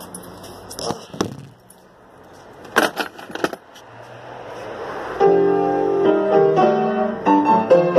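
Knocks and rustling from a phone being handled and set down against a piano, then, about five seconds in, the piano starts to play chords and single notes.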